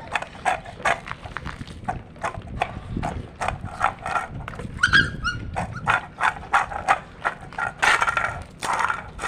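Dogs eating: rapid, irregular crunching and chewing of food, with a short high whine about five seconds in.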